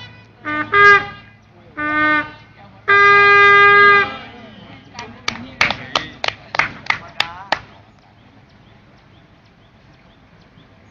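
Signal bugle sounding the end of a call: three short notes and then one long held note, cut off about four seconds in. A quick run of about eight sharp clicks follows.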